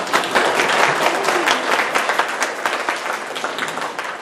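Audience applauding, a dense patter of many hands clapping that thins out toward the end.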